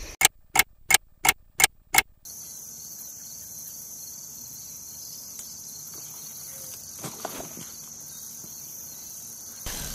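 Crickets chirring steadily, a high even hiss. Before it, in the first two seconds, come six sharp clicks about a third of a second apart.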